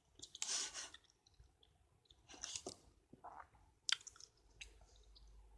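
A person biting and chewing a piece of chocolate close to the microphone: a few faint, short mouth sounds spread out with gaps between them, and a sharp click about four seconds in.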